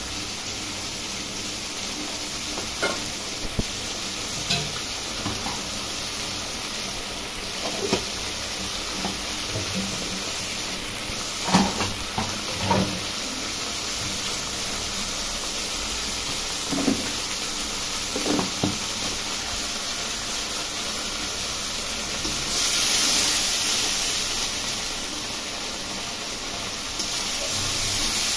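Potatoes in spice paste and a little water sizzling and bubbling in a wok as they are cooked down, with a spatula now and then knocking and scraping against the pan. The hiss grows louder about two-thirds of the way through and again near the end.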